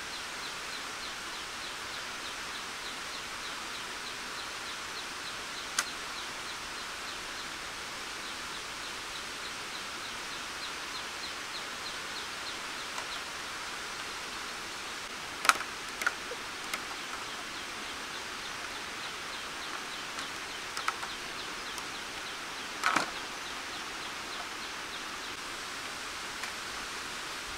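Wooden beams knocking together in a few scattered sharp clacks as timber is handled on a log house frame, the loudest pair about halfway through. A steady outdoor hiss with a faint rapid high ticking runs underneath.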